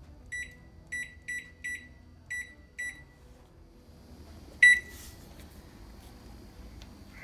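LG microwave oven keypad beeping as buttons are pressed: six short, high beeps in the first three seconds, then a louder beep about four and a half seconds in as Start is pressed. After that the oven starts running with a faint steady hum.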